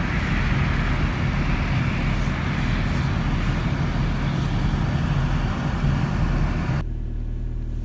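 A car engine idling steadily, a low hum under a broad rushing noise. Near the end the rushing cuts off abruptly and the engine hum carries on, duller, as heard from inside the car.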